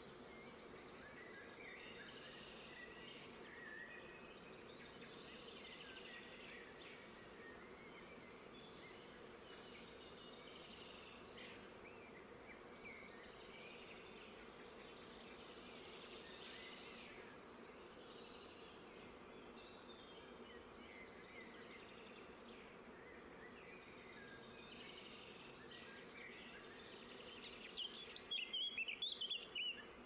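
Faint outdoor nature ambience of small birds chirping in the distance, with a quick run of louder chirps near the end.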